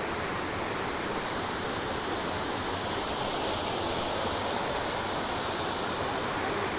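Steady rush of water falling and running over rocks at Horseshoe Falls and the mossy creek below it.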